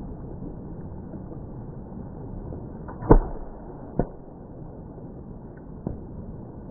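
Three sharp impacts over a steady noise: the loudest about three seconds in, a second one a second later, and a weaker one about two seconds after that.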